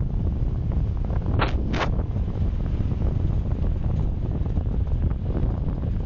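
Wind buffeting the microphone of a camera on a moving bicycle, a steady low rumble, with two short clicks about a second and a half in.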